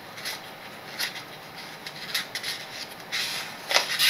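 Oracle cards being handled: light, scattered rustles and taps of cardstock, with a louder cluster of rustling near the end.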